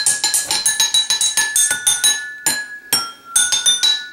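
Rapid clinking of spoons being struck together as a hand percussion instrument: a quick, fairly even run of bright ringing clacks that falters, turning irregular and sparser partway through.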